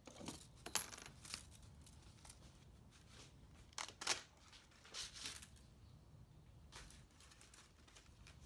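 Scrap wire and small metal pieces being handled and sorted by hand: scattered faint clicks, rustles and clinks.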